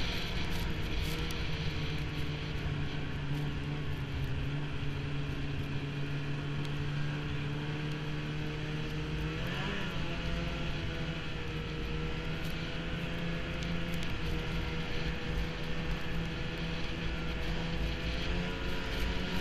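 Snowmobile engine running at a steady cruising pitch, heard from the rider's helmet, with a low rumble of wind on the microphone. About halfway through, the engine pitch rises briefly and then settles back.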